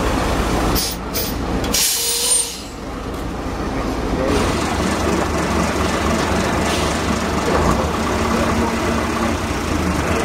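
Vintage buses' diesel engines running as the buses pull past close by, with two short hisses about one and two seconds in.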